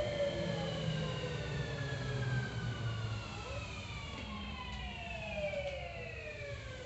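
Hitachi IGBT VVVF inverter and traction motors of a Tokyu 3000 series train, heard inside the car: a cluster of whining tones falling steadily in pitch over a low running rumble, as the train brakes into a station.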